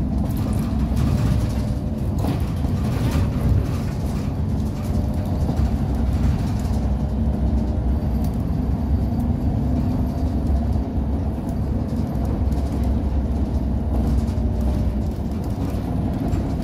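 Inside a moving city bus: the steady low rumble of the engine and road noise, with a few brief rattles a couple of seconds in.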